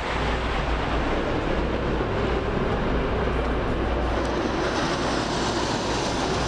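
Steady jet noise from a formation of T-50i Golden Eagle jets flying over. The hiss brightens a little after about four seconds.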